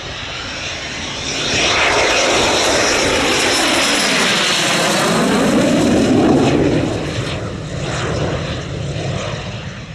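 BAe Hawk T.1A's Rolls-Royce Turbomeca Adour turbofan passing low on landing approach with gear down. The jet rush swells about a second and a half in, holds, then fades near the end, with the sweeping, phasing tone of a low pass.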